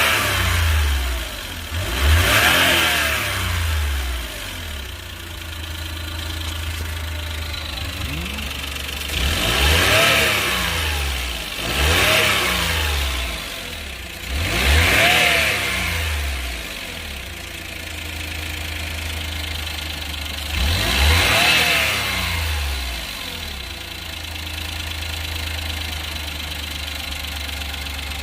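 Suzuki Every DA64W's turbocharged three-cylinder engine revved in about six short blips from a steady idle, each rising and falling in pitch. As each blip falls off, the turbo gives a whooshing, fluttering 'hyuru-hyuru' sound, which the owner fears means a failing turbocharger at 90,000 km.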